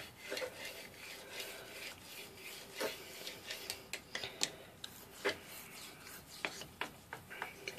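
Dovo straight razor drawn back and forth with light pressure along the wet 8000-grit side of a whetstone: a faint scraping rub broken by short, sharp clicks at irregular intervals.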